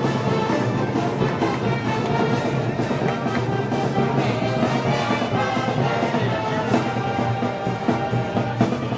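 Live festival brass band playing, brass over a steady beat of drums and cymbals at about three strokes a second.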